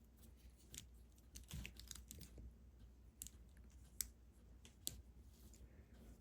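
Faint, scattered clicks of plastic LEGO pieces being handled and pressed together, with two sharper clicks about four and five seconds in.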